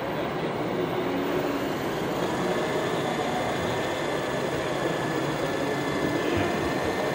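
Steady background din of a large exhibition hall, with a faint thin high whine starting about two seconds in.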